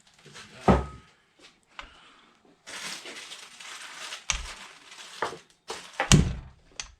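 Metal tools being handled on a workbench: sharp knocks and clanks, one ringing briefly about a second in, with rustling in between and the loudest knock near the end.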